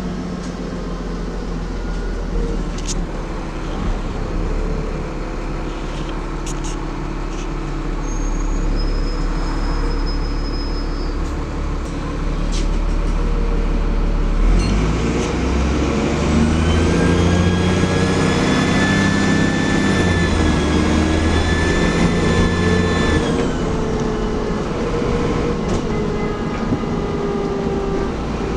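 Dennis Trident double-decker bus heard from inside: the engine runs low and slowing at first, with a few clicks. About halfway it pulls harder and a high turbo whistle rises and holds for several seconds, then cuts off suddenly as the power comes off. After that the bus runs on steadily.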